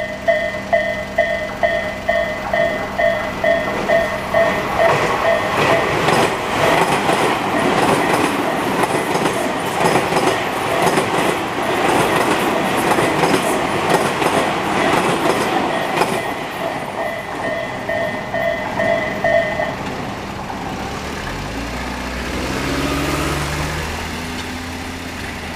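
Japanese railway level-crossing warning sounder of the Isesaki type, a loud electronic ding repeating about two and a half times a second. From about five to sixteen seconds in, a train passes over the crossing with clattering wheels, and the bell stops a few seconds later. Near the end, a road vehicle's engine rises in pitch as it pulls away.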